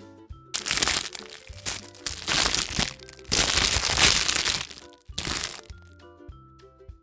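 Wrapper of a chocolate surprise egg crinkling loudly as it is unwrapped, in several bursts from about half a second in until shortly before the end, over background music with a light mallet-percussion melody.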